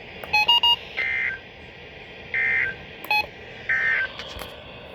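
NOAA Weather Radio SAME end-of-message data bursts: three short, identical buzzy digital squawks about a second and a half apart, signalling the end of the weekly test broadcast. A few short electronic beeps come near the start and once in the middle, over steady radio hiss.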